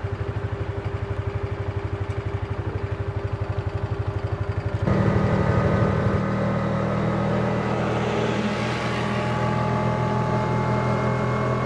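Side-by-side UTV engine idling with an even low pulsing. About five seconds in it changes abruptly to the engine running steadily at road speed, louder, with a steady droning tone.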